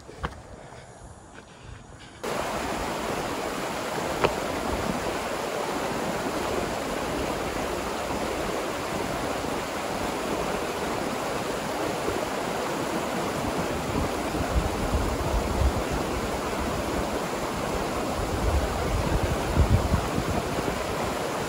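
River water rushing over limestone ledges and small falls: a steady, even rush that starts suddenly about two seconds in, after a quieter moment with a few clicks. A few low thumps come through near the end.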